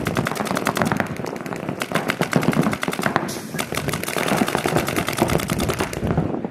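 Paintball markers firing in rapid, near-continuous volleys of sharp compressed-air shots during a speedball match.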